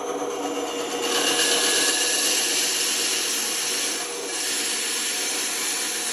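A woodworking power tool running steadily, with a piece of wood worked against it from about a second in, giving a loud gritty hiss. The hiss breaks off briefly near four seconds, then goes on.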